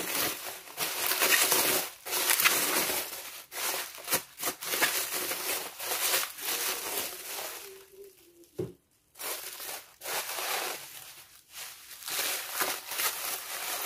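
Plastic bubble wrap crinkling and rustling in uneven bursts as hands turn and squeeze a wrapped parcel, with a brief lull and a single soft knock a little past halfway.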